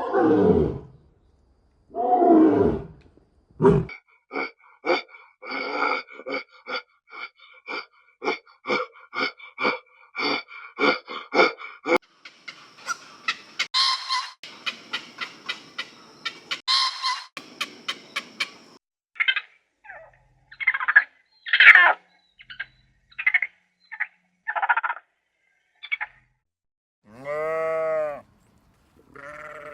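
A string of different farm animal calls one after another. Two long falling calls at the start are followed by about eight seconds of quick, short repeated calls, then scattered single calls, and a pitched bleat near the end.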